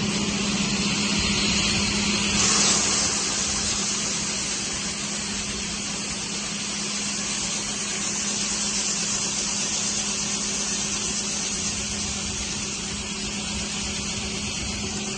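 A heavy farm vehicle's engine running steadily: a constant hum with a loud rushing noise over it, briefly louder about two and a half seconds in.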